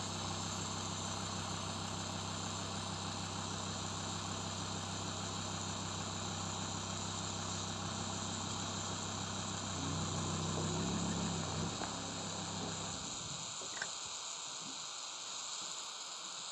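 A crushed aerosol can hissing steadily as gas escapes from it, over a truck engine idling. The engine swells briefly around ten seconds in and stops about thirteen seconds in, leaving the hiss on its own.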